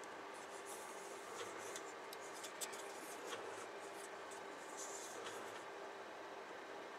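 Faint rubbing and light clicks of plastic model-kit sprues being handled and turned in the hands.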